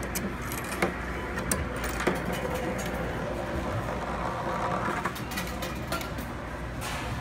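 A coin rolling and clattering along the plastic ramps of a coin-drop machine under a clear dome: scattered sharp clicks, with a denser stretch of rattling a little past the middle, over a steady store background hum.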